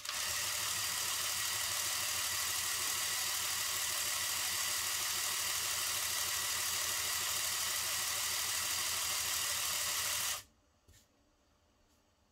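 Small electric air compressor switching on and running steadily for about ten seconds, a fast buzzing pulse under an airy hiss, as it pumps air through aquarium tubing into a balloon; it cuts off suddenly near the end.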